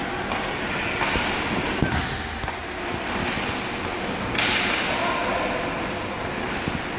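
Ice hockey rink sounds: skate blades scraping the ice, with a few sharp stick and puck knocks and a longer hissing skate scrape about four and a half seconds in.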